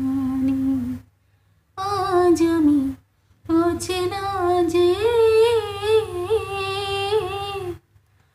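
A woman's unaccompanied voice carrying the tune of a Bengali song without words, in held, wavering notes. There are three phrases, broken by short silences about a second in and about three seconds in, and the last phrase is the longest.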